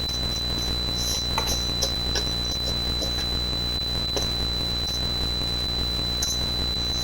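Electric mixer running at a steady speed, beating cream cheese and sugar, with scattered light clicks of the beaters against the bowl.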